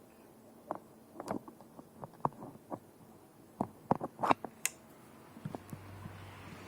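Irregular clicks and knocks, as of an antique ceiling fan being handled, followed by a low steady hum that sets in near the end.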